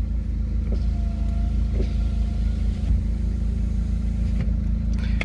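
Opel A20NFT 2.0 turbo four-cylinder petrol engine idling steadily with an even low rumble.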